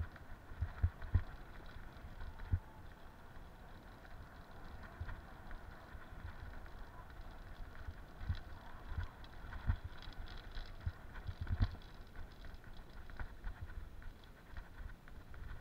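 Bicycle rolling along a dirt forest track: steady tyre noise and rattling, with irregular low thumps as it jolts over bumps, the strongest about a second in and again near the end.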